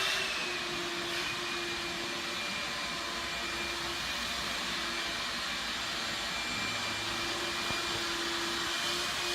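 Steady whooshing machine noise with a faint held hum, unchanging throughout.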